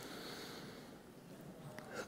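Faint room tone with a soft breath into a lectern microphone.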